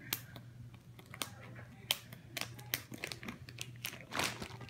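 Plastic zip-top bags of wax melts crinkling and clicking as they are handled: a scatter of small ticks and rustles, with a longer rustle about four seconds in.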